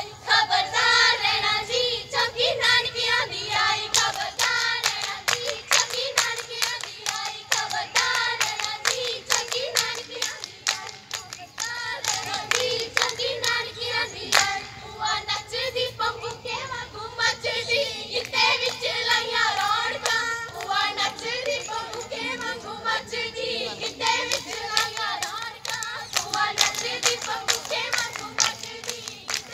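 Girls' voices singing a Punjabi folk song over steady rhythmic hand clapping that keeps time, the sung and clapped accompaniment of a giddha dance.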